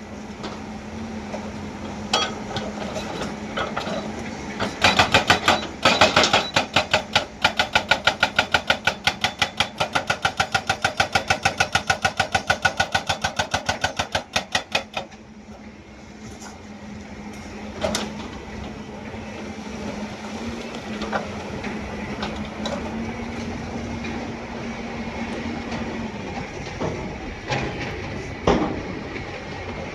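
Hydraulic breaker hammer on a Hyundai excavator pounding rock in a fast, even run of blows, about five a second, for about ten seconds, over the steady running of the excavator's diesel engine. The hammering stops about halfway through, leaving the engine running with a few single knocks.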